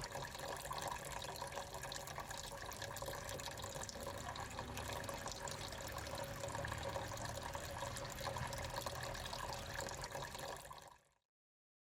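Water trickling and splashing steadily in a small tabletop water fountain, then fading out near the end.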